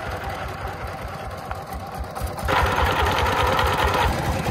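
Single-cylinder diesel engine of a công nông three-wheeled farm truck idling with a rapid, even clatter. About two and a half seconds in it grows louder and brighter for a second and a half.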